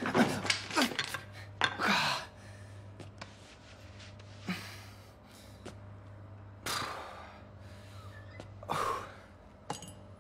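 A boy's sighs and breaths in a small tiled bathroom, a few short swells, with clicks and knocks of things handled at the sink, most of them in the first two seconds, over a low steady hum.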